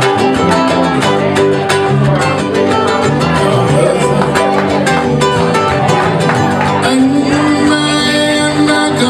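A live band playing a Hawaiian song with strummed acoustic guitar, electric guitar, electric bass and ukulele in a steady rhythm.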